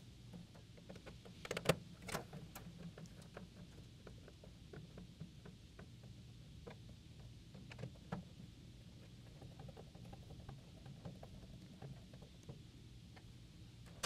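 Faint clicks and scrapes of a Phillips screwdriver driving the mounting screws of a T9 keypad in an ATM, with a couple of louder clicks about a second and a half in, over a steady low hum.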